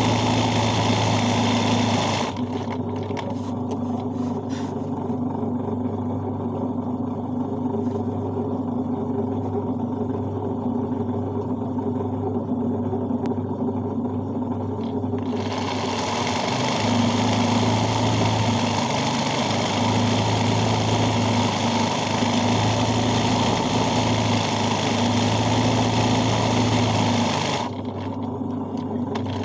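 Electric sewing machine stitching free-hand embroidery, running steadily with a constant hum. A higher hiss over it drops away about two seconds in and comes back about halfway through.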